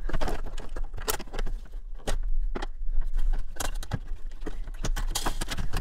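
Plastic headlight wiring connectors being unclipped and pulled apart by hand. Irregular small clicks and rattles come from the connectors and the wiring harness as they are handled.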